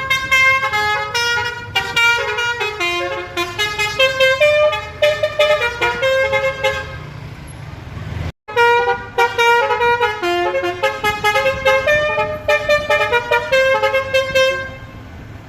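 Bus 'telolet' horn, a multi-tone air horn, playing a quick tune of stepping notes. The tune cuts off sharply about eight seconds in, then plays again and fades near the end.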